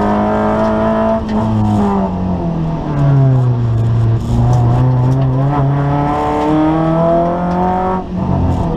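Kia Picanto rally car's engine heard from inside the cabin at speed: the revs fall about two seconds in, then climb steadily under acceleration before dropping sharply at an upshift near the end.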